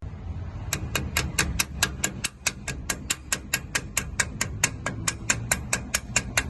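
Rapid, very even series of sharp metallic clicks from a hand tool working on metal, about four to five a second, starting just under a second in and stopping shortly before the end.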